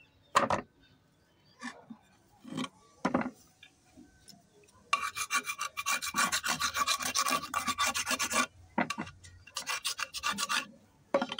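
A knife blade scraping across the face of a thin pink shale stone slab in rapid strokes, starting about five seconds in, with a brief pause before a second spell of scraping. Before that come a few separate knocks as the stone slabs are handled.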